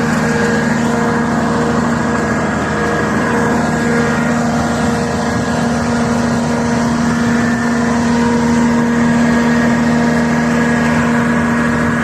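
Engine running steadily at a constant speed, a continuous even hum with no change in pitch.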